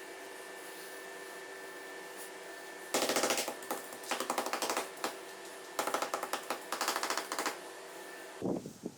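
A machine tool's motor running steadily, with two spells of rapid rattling chatter about three and six seconds in as it cuts metal. The motor stops near the end.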